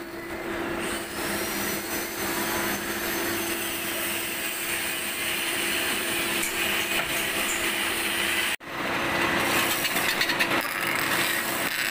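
Metal lathe running with a steady motor hum, its chuck turning a bush. After a sudden break about two-thirds of the way through, a louder, harsher cutting noise starts as a bar in the toolpost cuts oil grooves inside the bush's bore.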